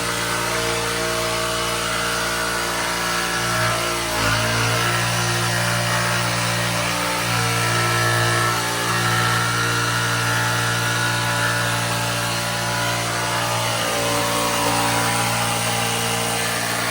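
Electric power saw running steadily as it cuts through a plywood base plate, with small shifts in pitch as the cut goes on.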